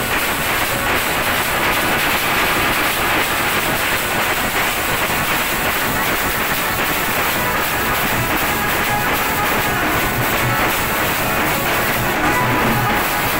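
A band party plays: saxophone, keyboard and drums together, loud and continuous.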